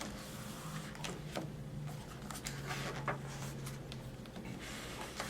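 Quiet indoor room tone with a faint low hum and a few soft clicks.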